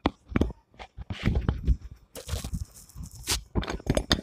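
Irregular crackling, rustling and tapping from hands handling crispy breaded chicken strips on a plate, with a longer rustle about two seconds in.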